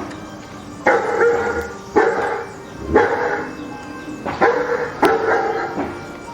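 A dog barking, about five loud barks roughly a second apart, over background music.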